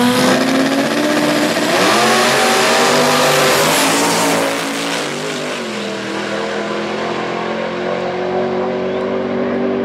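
Two drag cars, one of them turbocharged and 2JZ-powered, launching and accelerating hard down the strip at full throttle. The engine pitch climbs and breaks several times with the gear changes in the first few seconds, then settles lower and steadier as the cars run away downtrack.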